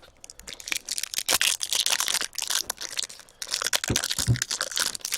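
Crinkling and tearing of a hockey card pack wrapper being opened by hand: a dense, irregular crackle of rustles and small snaps throughout.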